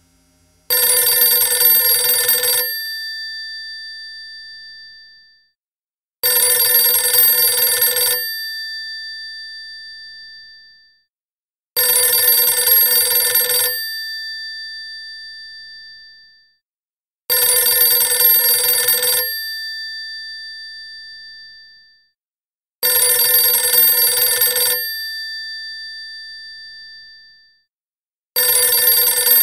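Telephone bell ringing in a steady ring cadence: each ring lasts about two seconds and rings out for a few seconds after, repeating about every five and a half seconds, six rings in all, the last cut off.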